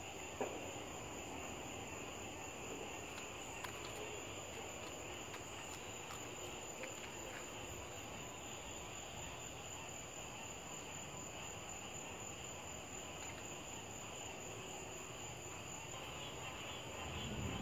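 Steady night chorus of crickets and other insects, faint under a light hiss. A low rumble builds near the end.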